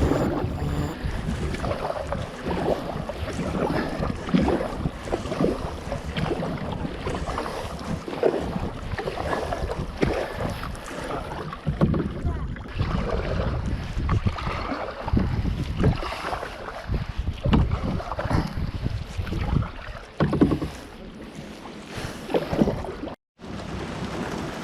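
Kayak paddling on a lake: paddle blades dipping and splashing in an uneven rhythm, with wind buffeting the microphone.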